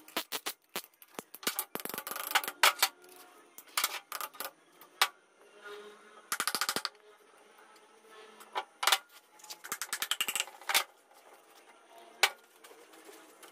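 Piston with new rings being tapped down through a ring compressor into a cylinder of a Mitsubishi 4D56 diesel engine block with a wooden hammer handle: a series of sharp metal clicks and knocks, with a fast rattling run of taps about six seconds in.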